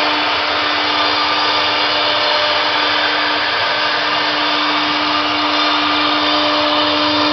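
Three-spindle CNC router running with its spindles at speed while routing grooves into a fibreboard (MDF-type) door panel: a steady high motor whine over a continuous cutting hiss.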